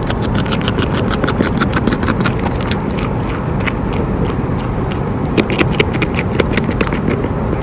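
North American beaver gnawing bark off a green stick held in its forepaws: a rapid run of crisp crunching clicks from its teeth, several a second with short pauses, over a steady low rumble.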